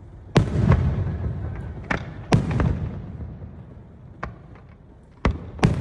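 Aerial fireworks shells bursting in the sky: about six sharp bangs in under six seconds. The two loudest, about a third of a second in and a little past two seconds in, each trail off in a long rolling rumble, with smaller cracks in between.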